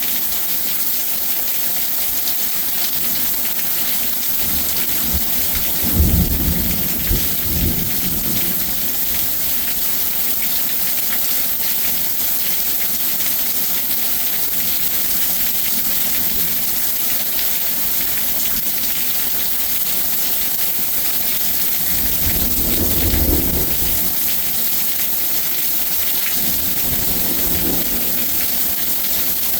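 Thunderstorm: heavy rain hissing steadily, with rolling thunder rumbling about six seconds in and twice more later on.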